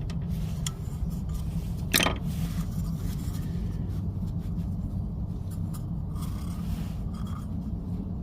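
A metal pick scraping and prying at the oil filter housing cap to work the old O-ring off, with small scrapes and clicks and one sharp scrape about two seconds in, over a steady low background rumble.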